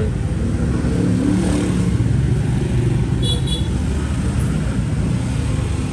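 Road traffic: a motor vehicle engine rumbling steadily as it passes close by. About three seconds in, a brief high-pitched tone sounds twice.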